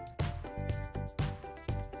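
Background music with a steady beat, about two beats a second, over held chords.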